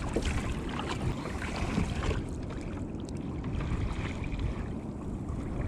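Water sloshing around a sea kayak's hull with wind on the microphone, and a few light knocks and clicks in the first couple of seconds.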